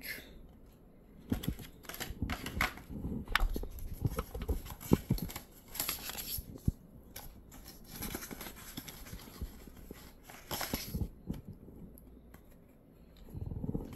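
Unboxing rustle: a cardboard product box and its paper inserts being handled and slid out, with irregular scrapes, crinkles and small clicks of packaging. Longer paper-sliding rustles come about six seconds in and again near eleven seconds.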